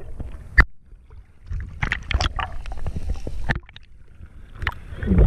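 Seawater splashing and sloshing around a camera as it goes under and back up through the surface, over a low rumble of water on the microphone, with a sharp knock about half a second in and another near the end.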